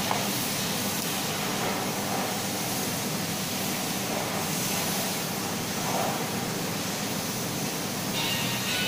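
Steady, even background hiss, like air-conditioning or room noise, with nothing standing out; a higher hiss joins in near the end.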